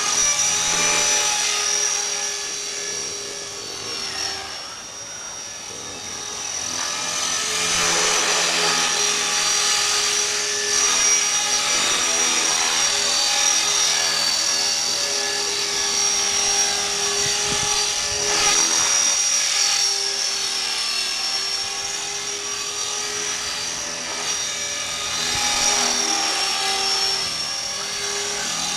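Blade 400 3D electric RC helicopter in flight: a steady high-pitched motor and gear whine over the swish of the spinning rotor blades. It fades about four seconds in as the helicopter moves away, then grows louder again a few seconds later as it comes back.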